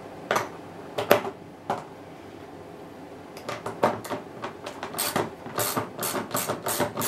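Ratchet socket wrench with an extension undoing the 10 mm bolts around a plastic washing-machine tub: a few separate knocks at first, then rapid, even ratchet clicking over the last couple of seconds.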